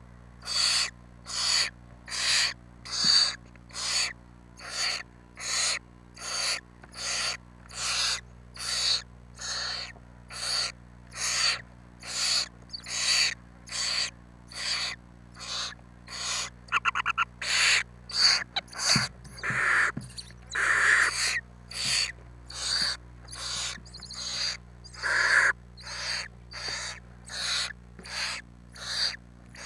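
Barn owl nestlings giving their hissing, snore-like begging calls over and over, about two a second, as they beg for food. A few louder, lower calls stand out in the second half.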